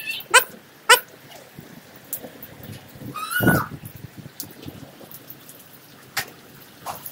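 Rain falling on a wet concrete yard, broken by several short, high, falling cries: two quick ones near the start and a longer one about three seconds in.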